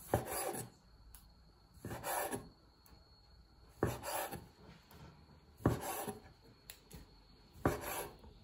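Chef's knife cutting through soft dough and meeting a wooden cutting board: five cuts about two seconds apart, each a knock of the blade on the board followed by a short scrape.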